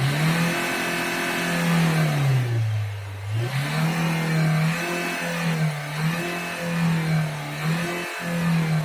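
Engine just caught after a hard cold-morning start, the revs climbing quickly and then held up on the throttle. About three seconds in they sag and recover, then keep wavering up and down as the engine struggles to settle.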